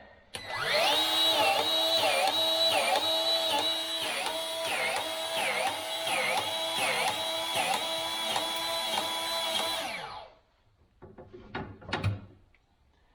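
Milwaukee M18 2446-20 cordless grease gun's motor running for about ten seconds, its pitch dipping again and again as it pumps grease under load into a hard-to-fill tractor grease fitting, then cutting off.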